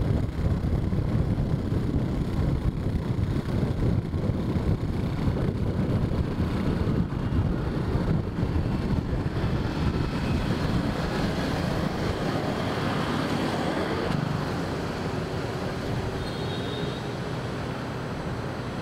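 Riding a motorbike in city traffic: a heavy, fluttering low rumble of wind on the microphone and engine noise. About two-thirds of the way through, this gives way to a steadier hum of passing road traffic.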